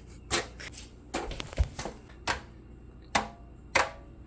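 A chicken pecking at a shiny toy: a string of sharp, hard taps at an uneven pace, about six in all.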